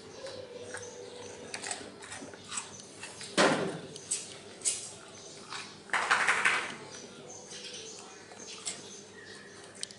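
Dogs being hand-fed treats: scattered small clicks and taps, with two short, louder noisy bursts about three and a half and six seconds in.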